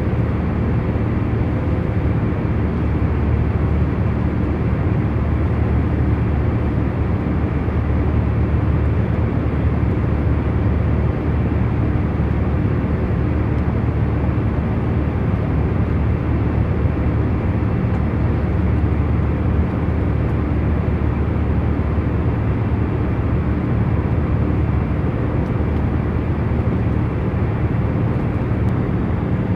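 Airliner cabin in cruise flight: a steady low rumble and rush of engine and air noise, with a few faint steady hums over it and no changes.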